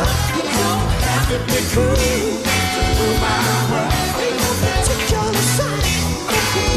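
Live band music with a steady drum beat, guitar and singing.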